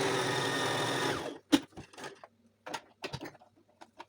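Brother electric sewing machine running steadily, then stopping about a second in, followed by scattered light clicks and taps from handling the machine.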